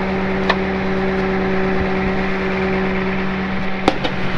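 4x4 wrecker truck's engine running steadily at raised speed while the boom winch controls are worked. Near the end there is a sharp click and the pitch drops.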